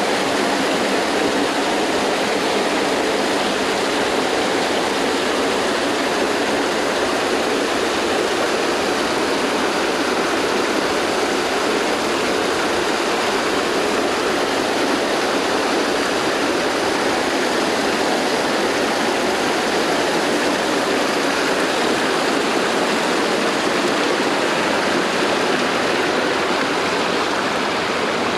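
Running water: a steady, unbroken rushing with no pauses or changes.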